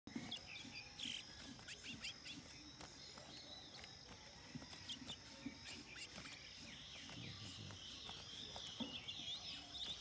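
Small songbirds chirping with short, scattered high call notes.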